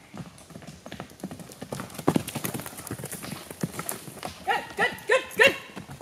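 Hoofbeats of a running horse: a quick, uneven patter of hoof strikes on the ground. A few short high calls come near the end.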